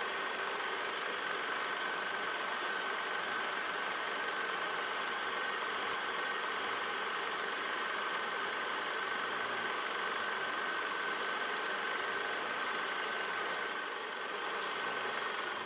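Old film projector running: a steady mechanical whir with a constant high-pitched hum.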